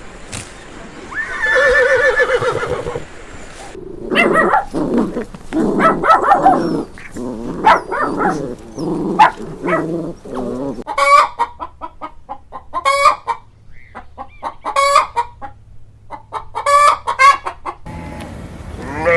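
Chickens: hens clucking in a run of short calls, and a rooster crowing. The sequence opens with one long wavering call.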